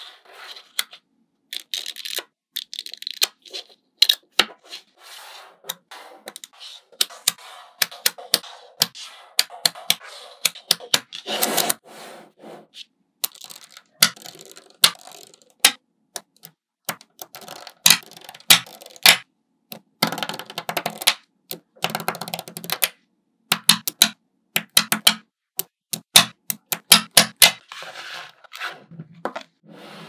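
Small neodymium magnet balls clicking and snapping together as strands and slabs of them are joined, with single sharp snaps and dense runs of tiny clicks.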